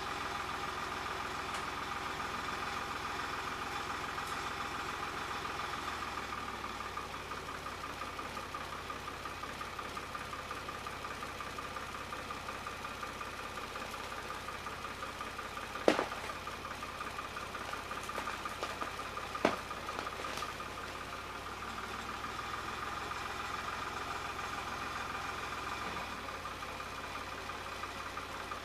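Ford 3910 tractor's three-cylinder engine running steadily while its front loader pushes against a dead tree. About halfway through come two sharp cracks a few seconds apart, the first the loudest sound in the stretch.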